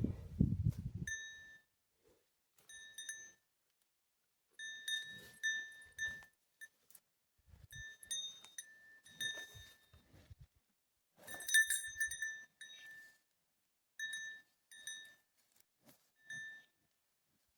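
Short high-pitched animal peeps, repeated in irregular clusters with gaps between, each a brief note at one steady pitch. A brief low rumble is heard at the very start.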